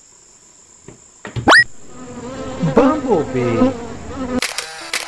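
A quick rising whoosh, then a bumblebee buzzing with a wavering pitch for about two and a half seconds, the word "bumblebee" spoken over it. A short musical jingle comes in near the end.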